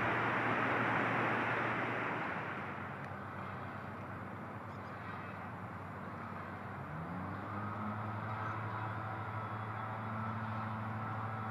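Motor vehicle noise: a broad rush fades over the first few seconds, then an engine hum rises in pitch about seven seconds in and holds steady.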